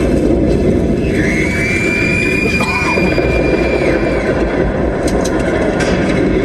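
Opel Astra driving on the road, heard from inside the cabin: a loud, steady rumble of engine, tyre and wind noise. A high steady whine sounds over it from about a second in until about four seconds in.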